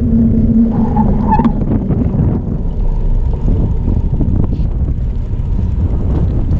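Wind buffeting the microphone of a camera on a moving bicycle, heavy and low. A steady low hum runs under it and stops about a second and a half in.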